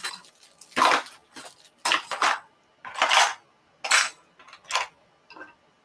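Small metal hand tools from an embroidery machine's accessory kit clinking and clattering against each other and a hard plastic case, in about six separate clatters roughly a second apart.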